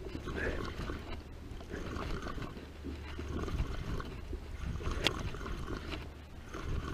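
Wind rumbling on the microphone while a spinning reel is cranked to bring in a hooked fish, with one sharp click about five seconds in.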